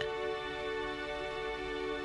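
Soft background music: a single held, steady chord.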